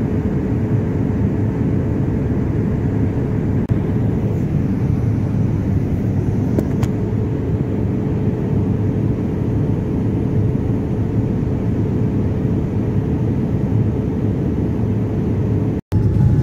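Steady low drone of noise inside a jet airliner cabin, with a faint steady hum above it. It drops out for an instant near the end and comes back slightly louder.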